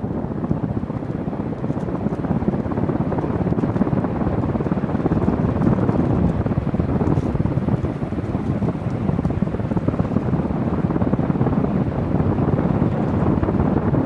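Encon Crompton Greaves Princess ceiling fan running at speed, its blades pushing air so that the downdraft hits the microphone as a loud, steady rushing noise. The air noise drowns out any motor hum.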